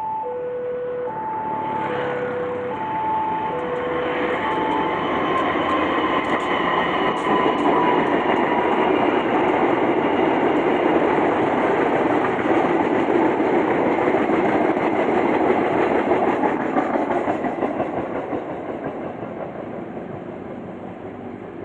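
A passenger train hauled by a CC 203 diesel-electric locomotive passes at speed, with its wheels clattering over the rail joints. The rumble builds, holds, and fades near the end as the coaches go by. In the first few seconds a level-crossing warning signal sounds its two alternating tones.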